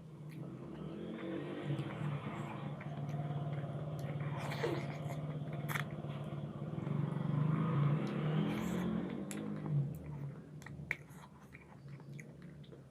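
A low motor hum with several steady tones, swelling over several seconds and fading away near the end, over chewing and biting sounds with a few sharp clicks.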